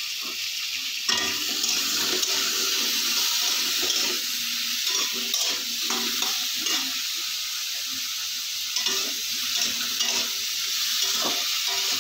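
Potato pieces sizzling in hot oil in a metal kadai, with a metal spatula repeatedly scraping and stirring them against the pan. The sizzle gets louder about a second in.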